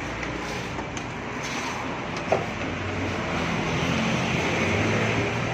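Steady vehicle engine and traffic noise that grows slightly louder after about three seconds, with a single sharp click a little over two seconds in.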